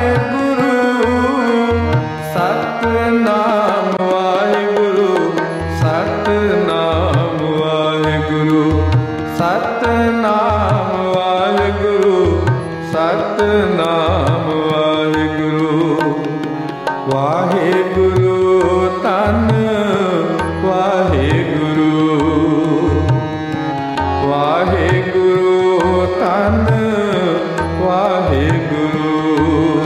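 Sikh kirtan music played without words: tabla strokes in a steady rhythm under a sustained harmonium melody, with some melodic lines sliding between notes.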